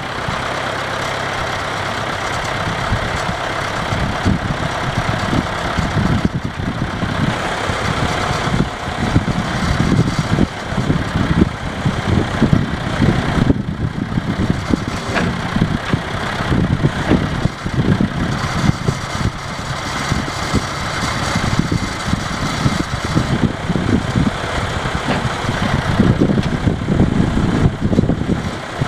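John Deere 310A backhoe loader's diesel engine running steadily at idle.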